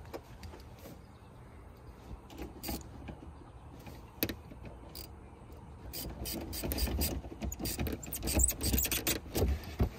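Clicks, knocks and rattles of hands and a socket wrench working on the car battery's terminal under the boot floor, as the battery is reconnected. The clicks come scattered at first and grow busier and louder over the last few seconds.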